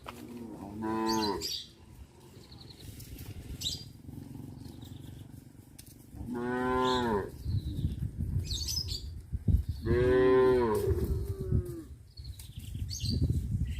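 Cows mooing: three long moos, the second about five seconds after the first and the third a few seconds later, over a low background rumble.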